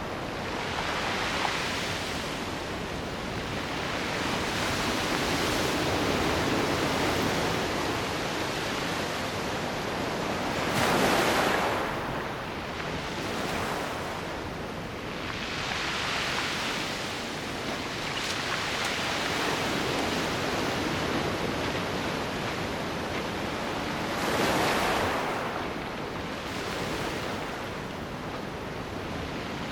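Sea waves washing onto the shore: a continuous rushing hiss that swells and ebbs in surges every few seconds. The two strongest breakers come about a third of the way in and again near the end.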